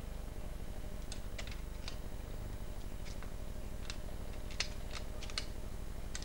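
A dozen or so short, sharp clicks and ticks at irregular intervals, the loudest about two-thirds of the way through, over a steady low hum.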